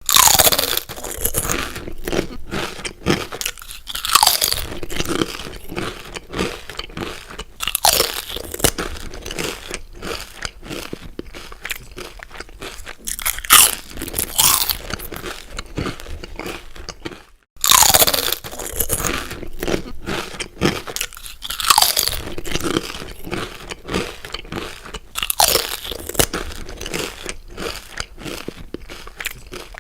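Loud, close crunchy chewing: someone biting and chewing crisp food in quick irregular crunches, broken by a brief silent gap a little past halfway before the crunching starts again.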